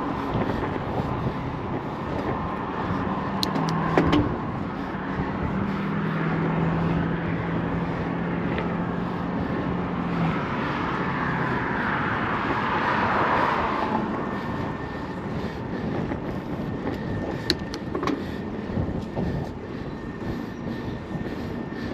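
Road traffic on the bridge beside the walkway, a steady rush of passing vehicles. A low steady hum runs from about three to twelve seconds in, and one vehicle swells past loudest around thirteen seconds in. There is a sharp knock about four seconds in.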